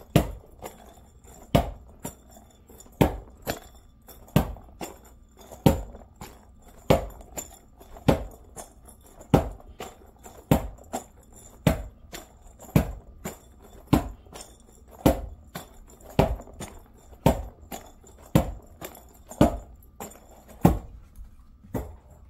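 A regular series of sharp clinking taps, a little more than one a second, some in quick pairs.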